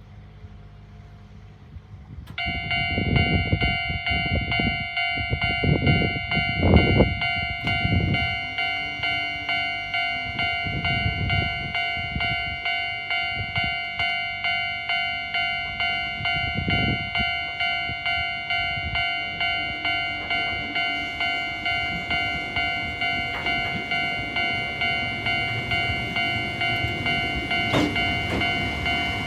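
Japanese railway level-crossing alarm with the older standard electronic bell tone, starting abruptly about two seconds in and then ringing on in an even repeating ding. Low rumbles come and go during its first several seconds.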